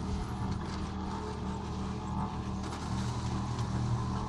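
Portable cement mixer running with a steady hum, its drum tipped to pour wet concrete into a bench-leg hole, with a few faint knocks.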